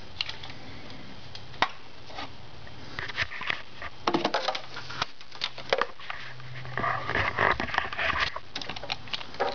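Handling noise from a handheld camera being moved and set up in a car's engine bay: irregular clicks, knocks and scraping against plastic and metal parts, busier in the second half, with a patch of rustling near the end. A faint low hum comes and goes underneath.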